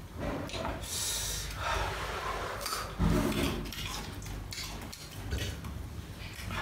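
Close-up chewing and crunching of raw green vegetables, with wet mouth noises, and a low thump about three seconds in.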